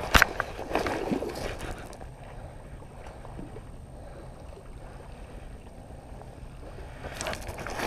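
Handling noise on a body-worn camera: a sharp knock right at the start as a hand brushes against it, followed by rustling of clothing. Then a low steady wind rumble, with more rustling near the end.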